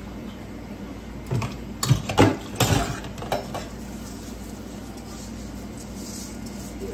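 Metal mesh colander clattering against the rim of a metal pot and a pan as drained rice is lifted and tipped into the pan, a quick run of sharp clanks and knocks about a second or two in.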